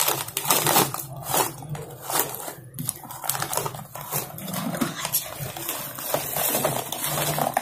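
Plastic snack bag crinkling as snack pieces are tipped out into a clear plastic jar: a run of irregular crackles and small rattling clicks.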